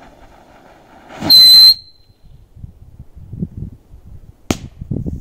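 A small firecracker buried under a light layer of sand: its fuse hisses, then about a second in it goes off in a loud half-second burst with a shrill high tone. A single sharp crack follows near the end.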